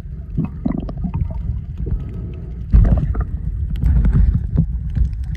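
Muffled underwater noise from a snorkeller's camera held below the surface: an uneven low rumble of moving water with scattered clicks and bubbles, swelling louder about three seconds in.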